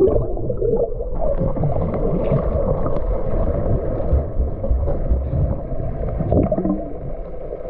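Muffled, steady rushing and gurgling of lake water picked up by an action camera's microphone held underwater.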